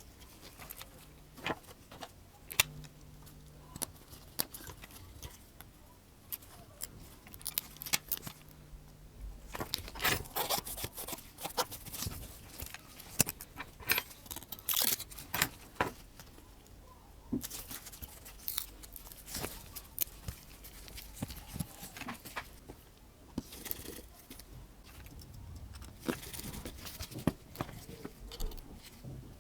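Irregular small clicks, taps and scrapes of hand tools and tiny smartphone parts being handled and fitted onto a phone's frame.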